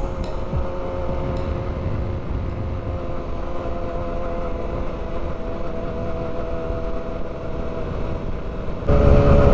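Motorcycle engine running at a steady pitch while riding. About nine seconds in, the sound abruptly gets louder.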